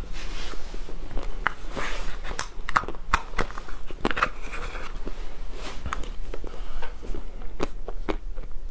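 Close-miked eating of ice cream with crisp chocolate pieces: irregular sharp crunches and crackles as the pieces break between the teeth, with the metal spoon scraping and clicking in the paper tub.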